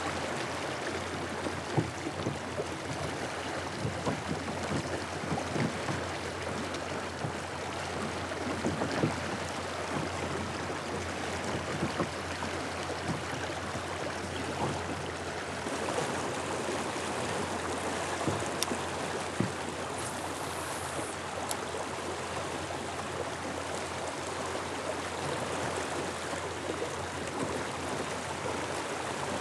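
Steady rush of a small river's current flowing over a riffle, with a few faint light clicks now and then.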